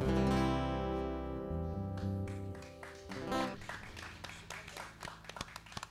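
Acoustic guitars ending a song: a final strummed chord rings out and fades away over about three seconds, followed by a few scattered sharp clicks near the end.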